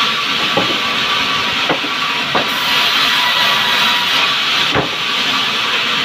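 Large sawmill band saw running and cutting timber lengthwise, a steady loud hiss of the blade in the wood, with four short knocks of timber against the saw table spread through it.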